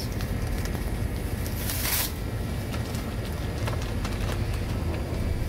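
Shop background: a steady low hum with light clicks and rustling, and a brief louder rustle about two seconds in.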